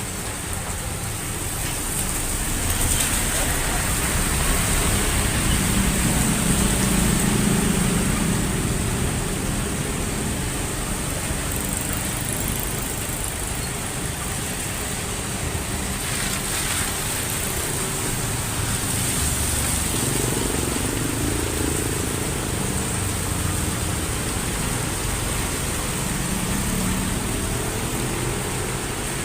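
Heavy rain falling steadily, with motor vehicles passing on a nearby road. The traffic rises in slow swells, loudest a few seconds in and again about two-thirds of the way through.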